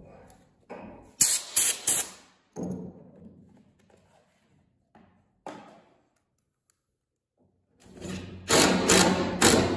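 Cordless power tools set down with sharp knocks on a wooden deck board. Near the end, a DeWalt cordless impact driver hammers a screw down through the board.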